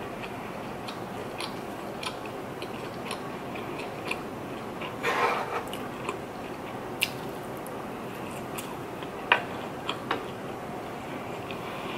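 Close-miked eating sounds: wet chewing and mouth sounds from a spoonful of rice, fried egg and fried sausage, over a steady hiss. Small clicks are scattered throughout, with a louder cluster about five seconds in and a sharp click a little after nine seconds.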